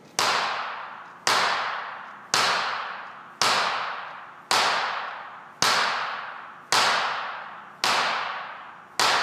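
A medicine ball slammed hard onto a wooden floor nine times, about once a second, each sharp smack echoing and fading in the room.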